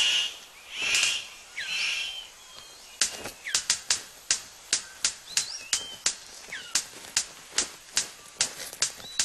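Male superb bird of paradise displaying to a female: three rushing bursts about a second apart, then a long string of sharp clicks, two to three a second, as he dances. Thin whistling calls of other forest birds sound faintly behind.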